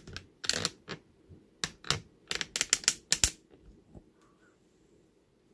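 Cloth being pulled and swept across a cutting table: a quick run of sharp rustles, flaps and bumps over about three seconds.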